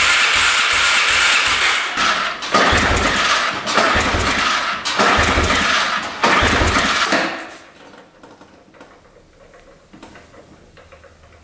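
The Can-Am Outlander 400's single-cylinder engine is turned over with the throttle held open for a compression test, chugging about three times a second with each compression stroke. The cranking stops about seven seconds in. The gauge settles at about 110 psi, a low reading the owner puts down to a stuck or worn piston ring.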